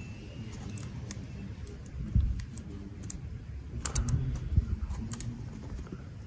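Irregular small metallic clicks and scrapes as the tap clip is moved over the stainless-wire turns of a base loading coil, over a low rumble.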